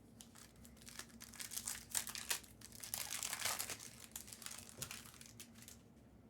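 Foil trading-card pack wrapper crinkling as it is torn open and handled, a dense run of crackles that thins out near the end.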